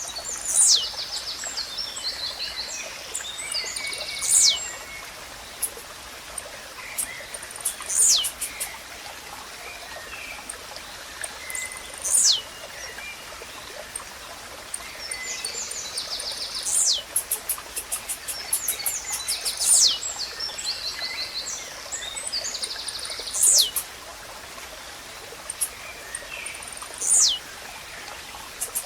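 Blue-black grassquit (tiziu) singing its short, sharp, downward-sweeping song note over and over, about every four seconds. Between the notes come fainter chirps and quick clicking trills of other small birds, over a steady hiss of background nature sound.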